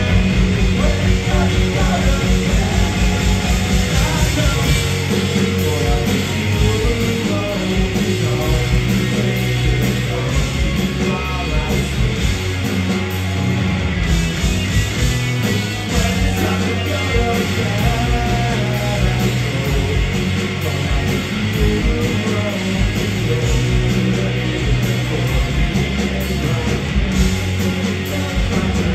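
Punk rock band playing live, with electric guitars and drums under sung vocals.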